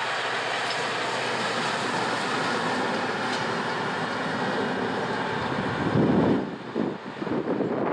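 Work train of a yellow diesel locomotive, railway crane wagon and flat wagon running past on the track and drawing away: a steady rolling noise of engine and wheels on rail. About six seconds in a loud low surge comes, followed by uneven gusty rumbling near the end.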